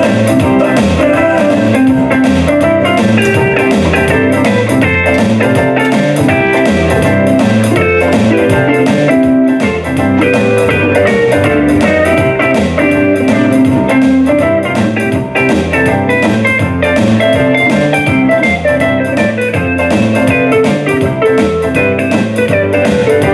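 Instrumental break in a rock-and-roll-style song: guitar-led band with bass and drum kit playing a steady beat.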